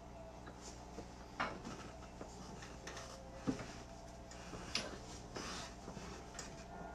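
A few light clicks and knocks, scattered about a second apart, over a low steady hum.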